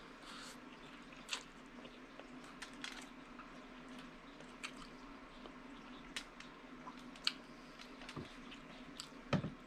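Close-miked chewing and wet mouth sounds of a person eating sausage and pasta by hand, with scattered sharp lip smacks and clicks and a louder thump near the end.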